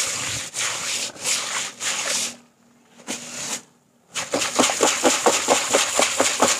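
Batik dye solution being stirred by hand in a basin, the stirrer scraping and sloshing. Uneven strokes for about two seconds, a short pause, then quick strokes about five a second.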